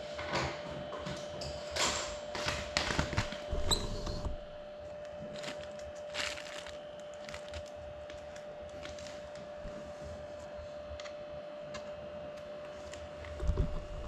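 Scattered clicks and rustles from a crashed FPV drone and the plastic wrap and bags around it being handled, over a faint steady high whine. A few low thumps come near the end as the drone is moved.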